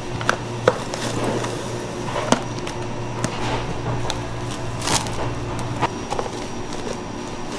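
Plastic cling wrap being handled: pulled from its box and pressed down over a plastic tub, with crinkling and scattered sharp clicks and taps of plastic, then the tub's plastic lid being fitted near the end. A steady low hum runs underneath.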